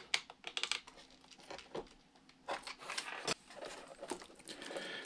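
Quiet handling noises from hot-gluing a broken foam piece back onto an RC plane's fuselage: a run of light clicks in the first second, a sharper knock a little past three seconds, then soft rubbing as the foam is pressed into place.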